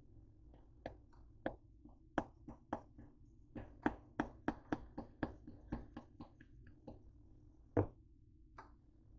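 Plastic ground-cinnamon shaker jar being shaken and tapped to sprinkle cinnamon: an uneven run of sharp clicks and taps, about two to four a second, with one louder knock near the end.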